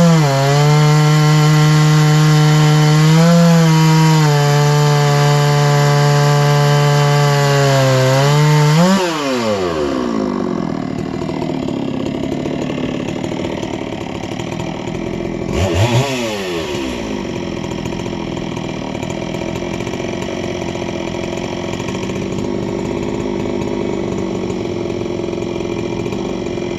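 Chainsaw on a chainsaw mill, with a full-complement chain, ripping through a tamarack log at full throttle with a steady engine note. About nine seconds in, the saw comes out of the finished cut: the engine revs up briefly and then falls to idle. It gets a quick throttle blip just before 16 s and then keeps idling.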